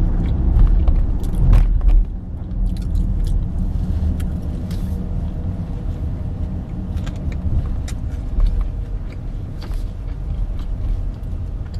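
Steady low rumble of a car's road and engine noise heard inside the moving cabin, louder for the first two seconds, with close-up chewing and crunching of waffle fries.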